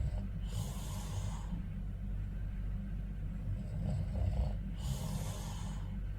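A man snoring in his sleep: two long, noisy breaths about four seconds apart, with a lower snore sound just before the second. A steady low hum runs underneath.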